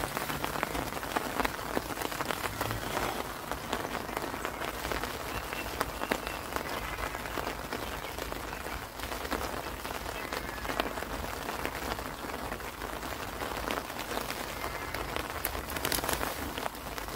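Heavy rain falling steadily, countless drops pattering on the fabric canopy of a fishing umbrella overhead and on the pond.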